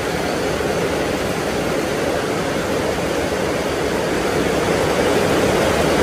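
Hot-spring water pouring into a bath, a steady rushing splash.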